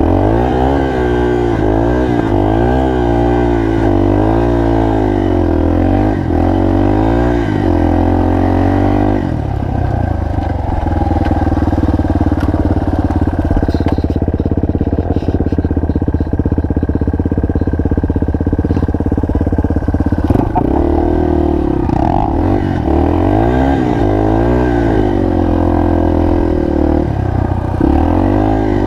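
Single-cylinder four-stroke trail motorcycle engine under way off-road, its pitch rising and falling again and again as the throttle is worked for the first nine seconds or so. It runs at a steadier pitch through the middle, then revs up and down again about twenty seconds in.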